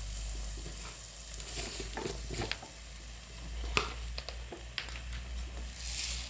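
Grated carrot halwa sizzling in ghee in a kadai while a spoon stirs it, with scattered sharp clicks of the spoon against the pan. The sizzle is the sign that the milk has cooked off and the ghee has separated and is frying.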